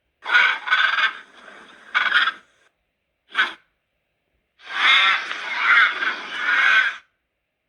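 Vocal sound effects of the cartoon monster Gallawallop: a series of separate creature calls cut apart by silence. There are two quick calls near the start, a short one about two seconds in, a very brief one about a second later, and a longer wavering call from about four and a half to seven seconds.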